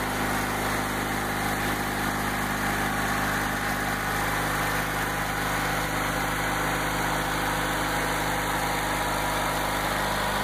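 Kohler Magnum MV20S 20 hp opposed-twin engine of a 1994 Craftsman II GT6000 garden tractor, running steadily.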